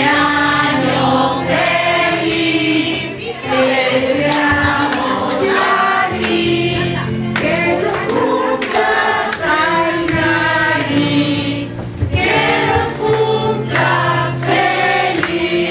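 Many voices singing together in chorus, with instrumental backing underneath.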